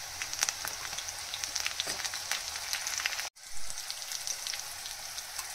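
Onions frying in hot oil for a tadka: a steady sizzle full of small crackles and pops, which cuts out for an instant a little over three seconds in and then goes on.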